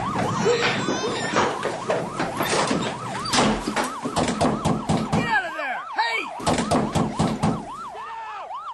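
Police siren wailing in a fast yelp, rising and falling about three times a second, with several sirens overlapping briefly about five seconds in. Beneath it runs a rapid string of regular knocks. Everything fades down near the end.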